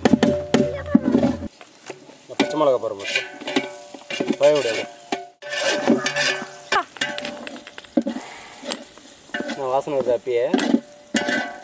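A metal ladle stirring and scraping food that is frying and sizzling in a cooking pot, with repeated sharp clicks of metal against the pot. A melody with a wavering pitch plays over it several times.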